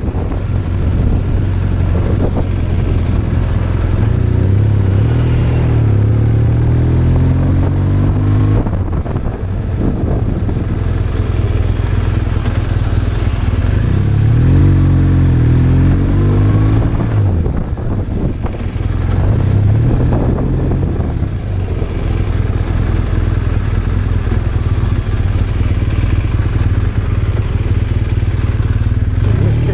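BMW R1200RT's boxer-twin engine running on the move, its pitch rising and falling several times as the bike speeds up and slows.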